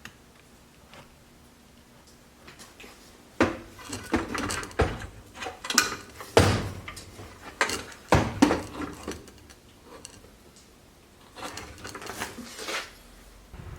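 Irregular knocks, clicks and clatter of hard objects being handled, about a dozen sharp hits over ten seconds after a quiet start.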